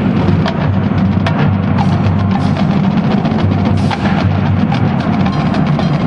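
Marching band playing, percussion to the fore: many quick, sharp drum strokes over a sustained low chord.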